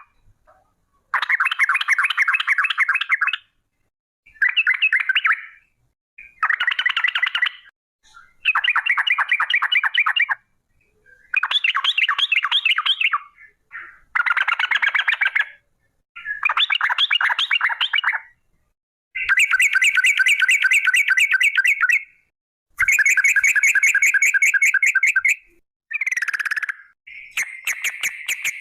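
Yellow-vented bulbul (trucukan) song: long, very rapid rattling trills in about eleven bursts of one to three seconds each, with short pauses between. The later bursts are steadier and more even in pitch.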